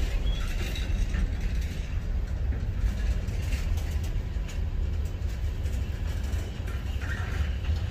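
Container-laden freight wagons rolling past on the rails: a steady low rumble with light clicks and rattles from the wheels and wagons.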